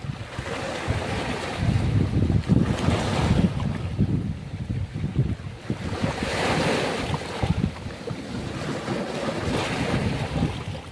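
Ocean surf breaking in repeated washes, a new wave swelling about every three to four seconds. Wind buffets the microphone.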